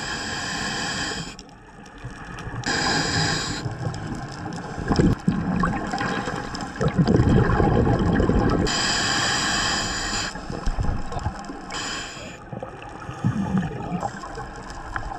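Scuba diver breathing through a regulator underwater: hissing inhalations alternate with gurgling bursts of exhaled bubbles, in a slow rhythm of a few breaths.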